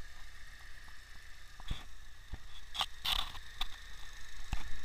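Opel Vectra A engine idling steadily, with a steady low rumble and a faint high whine, broken by scattered short clicks and scrapes.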